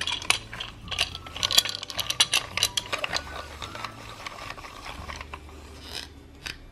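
Hand-spun plastic Play-Doh crinkle-cut fry cutter: its blade turning in the plastic housing gives a fast run of plastic clicks and rattles that thins out after about three and a half seconds.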